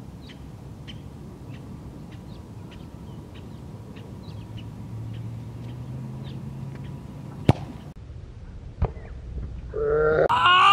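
Soccer ball struck hard in a free kick: one sharp thud, then a weaker thud about a second later. Near the end a man lets out a loud, drawn-out yell.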